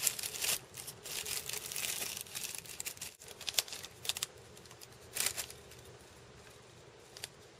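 Metallic tissue paper rustling and crinkling as a wrapped package is unwrapped, with scattered crinkles from a foil snack pouch being handled. The crinkling is densest in the first half-second, comes in short bursts after that, and dies away after about five and a half seconds.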